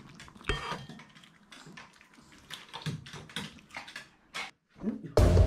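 Scattered light clicks and taps of small dogs' paws and claws moving on a wooden floor and against a wire pen. Loud background music starts suddenly near the end.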